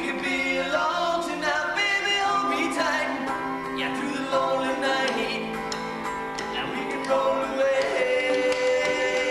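A group of male voices singing a song together in harmony, holding long notes, unplugged.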